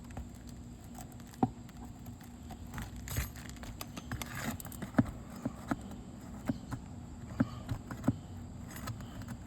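Irregular sharp metal clicks and taps, with a short stretch of scraping a little past the middle, from a roof snake being worked under asphalt shingles to pull the roofing nails; the brittle shingles let the nails pull through.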